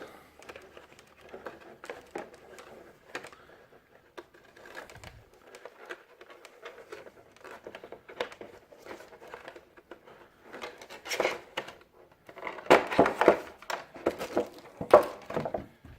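Packaging being handled and unwrapped around a small accessory, crinkling and rustling with scattered light clicks, growing louder in several bursts in the second half.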